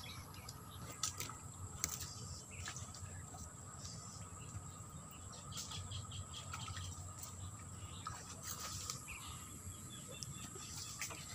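Insects calling steadily in a high, even tone, with scattered crackles and snaps of dry bamboo leaves and twigs being stepped on and pushed through.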